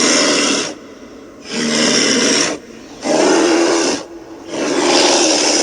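A bear growling, several rough, rasping growls in a row about every second and a half, like heavy breaths. It is presented as the call of a prehistoric bear.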